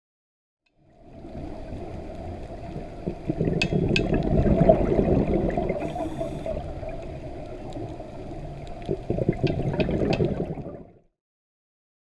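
Moving water, a dense steady noise with a few sharp clicks, that starts about a second in, swells in the middle and stops abruptly shortly before the end.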